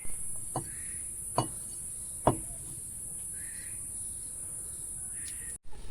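Steady high-pitched insect chirring, crickets by the sound of it, with three sharp taps less than a second apart, the third the loudest.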